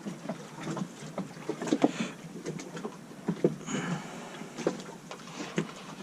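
Irregular light clicks, knocks and scrapes of metal parts being worked loose and slid out by hand inside a sailboat's Edson steering pedestal.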